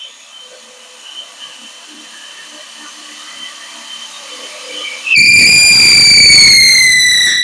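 Cordless brushless DeWalt hammer drill starting up about five seconds in and running at full speed for about two seconds, a loud high whine that sags slowly in pitch as it comes under load, then stopping abruptly. Before that, only small faint knocks of handling.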